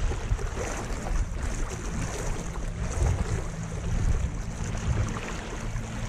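Wind buffeting the microphone and water lapping as a small inflatable boat moves slowly along under its electric trolling motor, with a low steady hum underneath.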